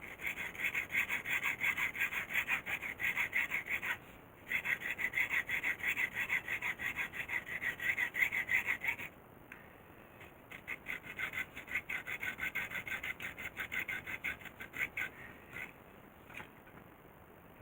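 A hand tool worked rapidly back and forth across a workpiece, about five rasping strokes a second. It goes in three runs, with short breaks about 4 s in and again around 9 to 10 s, and stops a couple of seconds before the end.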